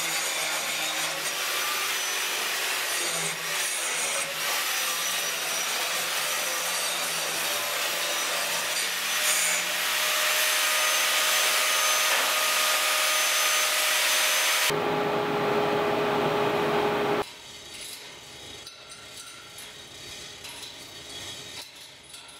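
Electric angle grinder grinding steel, a loud steady grinding hiss with the motor's whine. It changes tone about 15 seconds in and stops a couple of seconds later, leaving a much quieter background.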